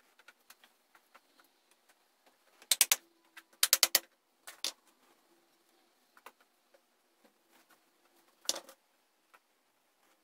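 Wooden parts of a homemade poplar step stool–valet stand knocking and clacking together as they are handled and fitted by hand. Two quick clusters of sharp knocks come about three and four seconds in, a lighter one soon after, and a single knock near the end, with faint clicks between.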